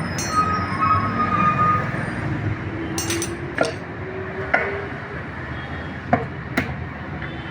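Metal tools and parts clinking about five times, sharp and brief, during motorcycle clutch assembly, over a steady low background rumble.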